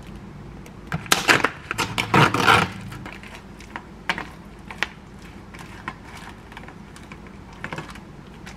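Clear plastic meat-tray packaging crinkling and crackling as it is handled, densest between about one and three seconds in. After that come scattered light clicks and taps as ground pork is pushed out of the tray into a stainless steel bowl with a wooden spoon.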